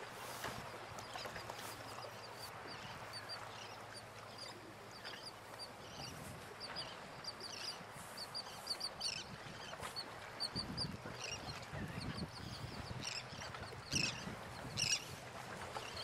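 Birds calling: short high calls repeating, with a few louder calls near the end. A low rumble comes in about two-thirds of the way through.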